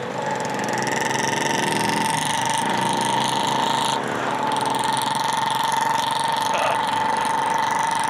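KTM RC sport motorcycle running at a steady cruise, heard from on the bike: the engine and drive give a steady high whine over rushing wind and road noise, with a short break about halfway through.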